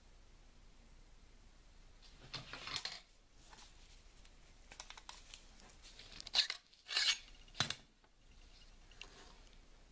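Handling noise as an M1 bayonet is picked up off the table: a short rustling scrape about two and a half seconds in, then three sharper rustling, scraping bursts close together between about six and eight seconds in.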